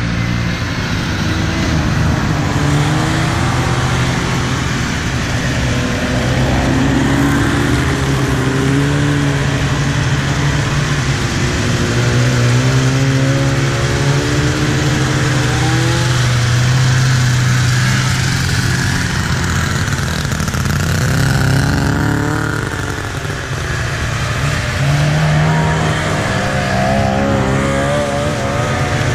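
A procession of vintage two-stroke snowmobiles passing one after another. Their engines run continuously, and the pitch rises and falls as each machine goes by.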